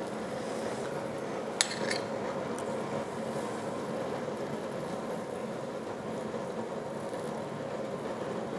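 A metal skewer clinks once against a ceramic plate, a sharp click with a short ring, as cooked chicken pieces are pulled off it and torn apart by hand. A steady low hum runs underneath.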